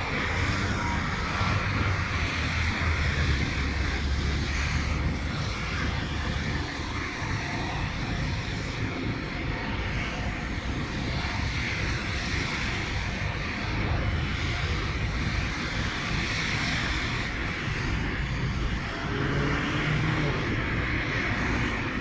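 Blizzard wind blowing hard and steadily, with uneven low rumbling where the gusts hit the microphone.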